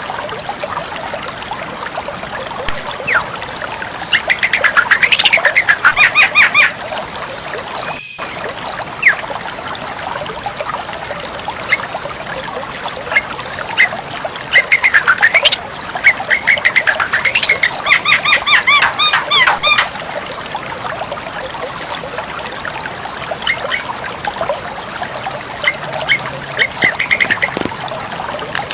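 Javan myna (jalak kebo) calling in loud bursts of harsh, rapidly repeated chattering notes, three main bursts with scattered single calls between them.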